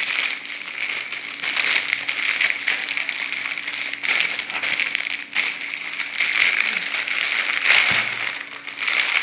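Plastic packaging crinkling continuously as it is handled and pulled open to unwrap a fidget toy.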